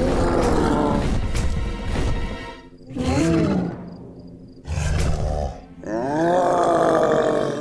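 Cartoon Tyrannosaurus rex roars over background music: one roar at the start, a shorter call about three seconds in, and a long, loud roar near the end.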